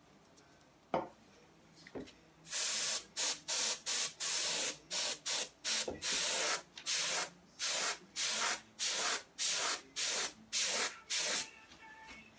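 A can of compressed air sprayed in short hissing bursts, about two a second for some nine seconds, blowing wet alcohol ink across a canvas. Two light knocks come just before the spraying.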